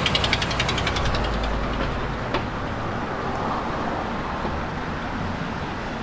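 Street traffic with a car driving past: a steady low engine rumble and tyre noise. A rapid, even ticking fades out in the first second or so, and there is a single sharp click about two seconds in.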